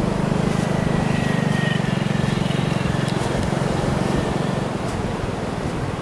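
An engine running steadily with a fast, even pulse, easing off a little over the last couple of seconds.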